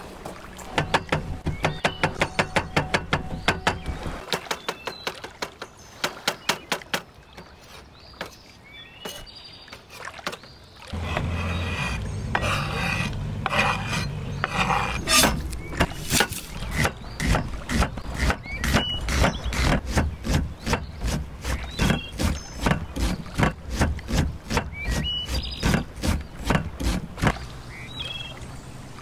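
Cleaver chopping on a wooden cutting board in fast runs of knife strikes, about five a second, first through soft roasted cherry tomatoes and later through an onion, with the blade scraping across the board partway through. A low steady rumble runs underneath from about eleven seconds in.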